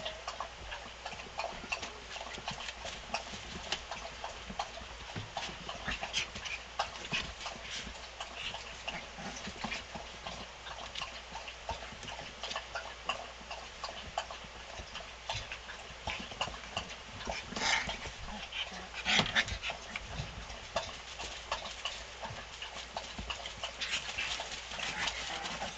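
Four-week-old Siberian husky puppies scrabbling and tumbling about a blanket-covered whelping box: a constant patter of quick taps and scuffs from their paws and claws, with two louder knocks about two-thirds of the way in.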